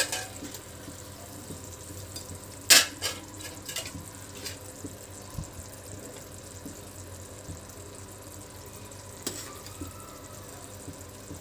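Steel ladle scraping and clinking against a steel kadhai and metal serving bowl as thick curry is stirred and ladled out: one sharp clank about three seconds in, a few lighter clinks just after and another near the end. A faint steady sizzle of the hot curry in the pan underneath.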